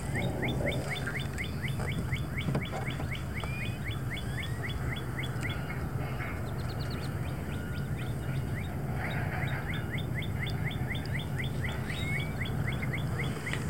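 A bird calling in long runs of short, quickly repeated chirps, about four or five a second, with a pause in the middle and a brief higher trill. A steady low hum runs underneath.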